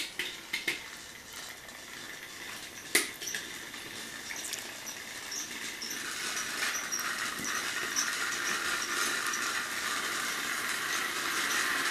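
Battery-powered Thomas & Friends toy engines running on plastic track: a steady whir of small motors and gears that builds and grows louder from about halfway through. A few sharp plastic clacks early on as the engines are handled and set on the track.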